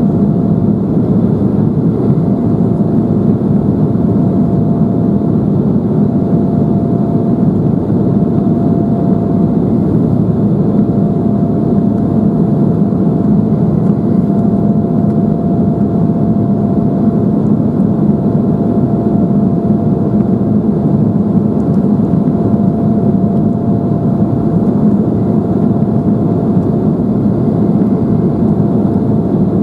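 Steady cabin noise of an Embraer 175 in its climb after takeoff: a loud, even, low rumble of its two GE CF34-8E turbofans and airflow. A faint steady whine comes in about two seconds in.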